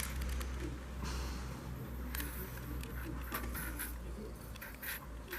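Butane from a refill canister hissing softly into a gas lighter's fill valve, with scattered small clicks of the canister nozzle and lighter being handled.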